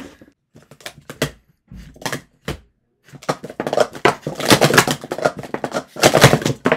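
A few scattered sharp taps, then, about three seconds in, a fast, dense run of plastic clacks as clear plastic sport-stacking cups are stacked up and down at speed in a timed cycle.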